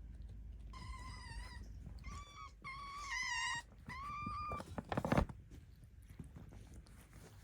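Hungry kitten meowing four times in a row, short high-pitched calls of under a second each. A sharp knock follows a little after the last call.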